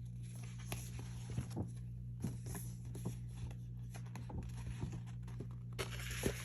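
Paper rustling with scattered light taps and clicks as album inserts and a folded poster are handled, over a steady low hum.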